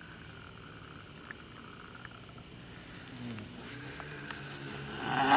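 Night insect chorus of crickets chirping steadily. Near the end, a man breaks into a loud, growling cry.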